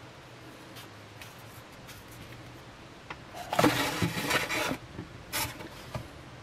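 Plastic toothbrush handle pushed into a polystyrene foam packaging tray: foam rubbing and squeaking for about a second, then a shorter scrape and a light knock.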